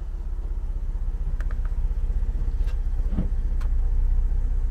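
Car driving, heard from inside: a steady low engine and road rumble, with a few light clicks and rattles.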